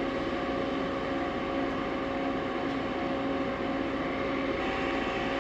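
Steady mechanical hum of running shop machinery, with a few unchanging tones over an even noise.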